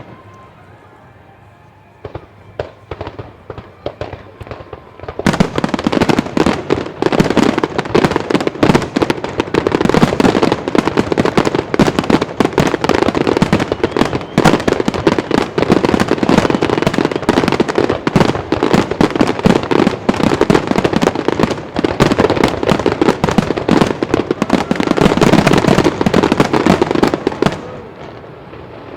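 Aerial fireworks display: a few scattered shell bursts, then from about five seconds in a dense, continuous barrage of bangs and crackling that eases briefly near the end.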